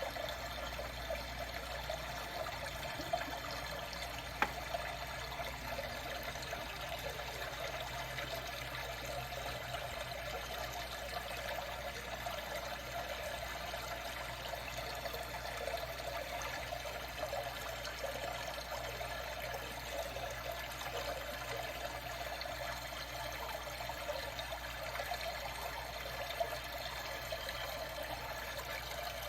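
Water trickling and lapping steadily around a kayak, with a couple of brief clicks about three and four and a half seconds in.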